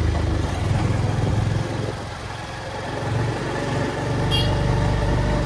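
Motorcycle engine running as it is ridden along a street, easing off about two seconds in and picking up again a second later. A short high-pitched sound comes in about four seconds in.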